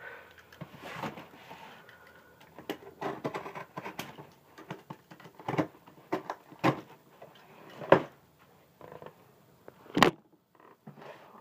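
Cardboard shipping box being cut open with a box cutter and handled: irregular scraping and rustling broken by several sharp knocks, the loudest about eight and ten seconds in.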